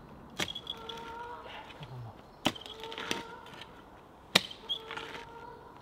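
A hand mattock chopping into the soil: several sharp strikes a second or two apart, the loudest two about halfway through and near the end.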